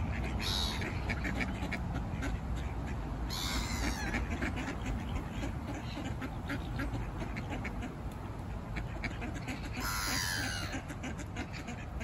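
A flock of mallard ducks quacking, many short calls overlapping. A few louder, higher calls stand out about three and a half and ten seconds in.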